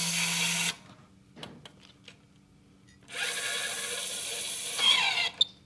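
Kolver DC electric screwdriver running briefly in reverse to back out a screw, stopping about half a second in. About three seconds in it runs forward again, driving the screw down into the torque-tester rundown adapter. Near the end its sound rises and changes as the joint tightens, and it cuts off with a click at its roughly 3 N·m torque setting.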